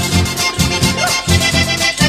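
Instrumental passage of a Chilean cueca: accordion playing over a steady, even beat.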